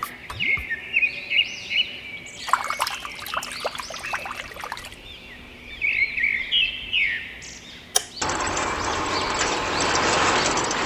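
Birds chirping in short repeated calls, with a run of sharp clicks and clatter in the middle. About eight seconds in a single sharp click is followed by a steady, louder rushing noise.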